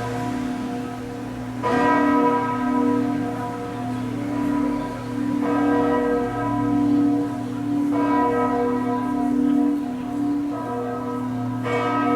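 Chartres Cathedral's church bells tolling: four strokes a few seconds apart, each ringing on over a continuous low hum. The tone is somber, with distorted-sounding overtones.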